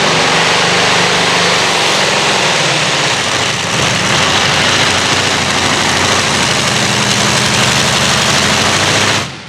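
Engine of a competition pulling tractor running at full power, loud and steady; it cuts off suddenly near the end.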